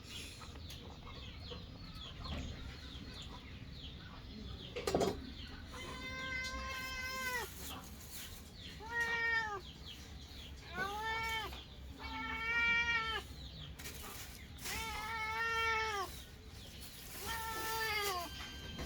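Kitten meowing repeatedly: about six drawn-out meows, each rising then falling in pitch, beginning about six seconds in. A brief knock sounds just before the first meow.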